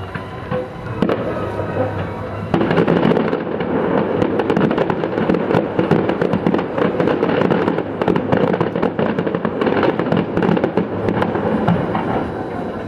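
Aerial fireworks bursting and crackling. About two and a half seconds in they thicken into a dense, continuous barrage of rapid pops and crackles.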